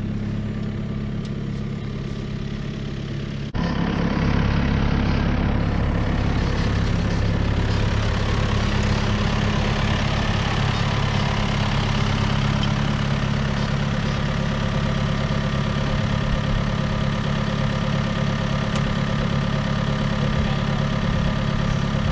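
John Deere tractor's diesel engine idling steadily. About three and a half seconds in it suddenly becomes louder and closer, then runs on evenly.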